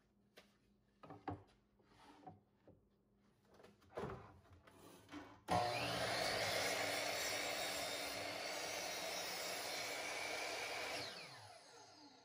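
A few knocks and clicks as a board is set against the fence. Then a Bosch miter saw starts abruptly and runs for about five seconds, cutting a plywood drawer front to final size. The saw is switched off near the end and the blade winds down with a falling pitch.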